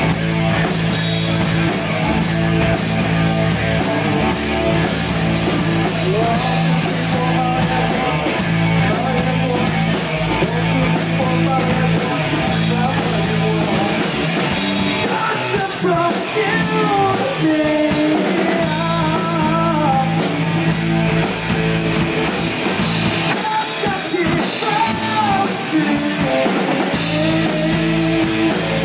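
Rock band playing live: two electric guitars, bass guitar and a drum kit. A lead vocal sings over them from about halfway through.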